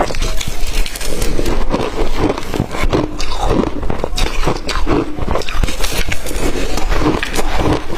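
Blender-crushed ice being bitten and chewed right at the microphone: a dense, steady crunching crackle of many small cracks.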